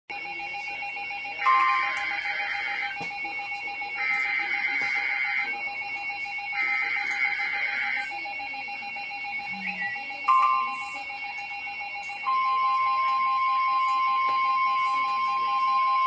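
Emergency Alert System alert beginning: three bursts of buzzy digital header tones, each about a second and a half long, then a short burst, then a steady single-pitched alert tone that starts about twelve seconds in and holds.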